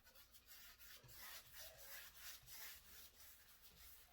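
Faint, repeated swishing strokes of a paintbrush spreading paint across a wall.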